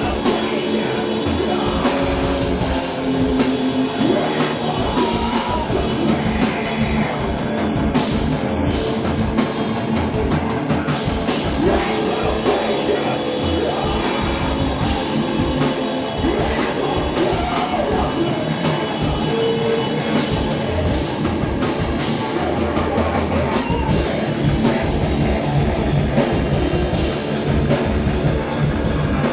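A heavy rock band playing live at a steady loud level: electric guitar over a drum kit.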